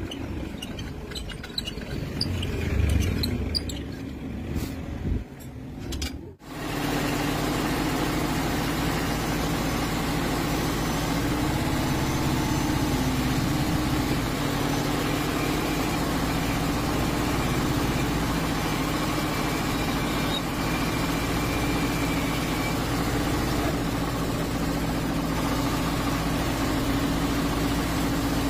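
Irregular low knocks and handling noises, then after a sudden cut a machine running steadily at constant speed, a loud even drone with a few fixed low tones.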